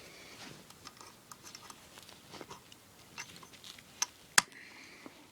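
Faint, scattered clicks and taps of a plastic airsoft gun and its sling hardware being handled as the sling is fitted, with two sharper clicks about four seconds in.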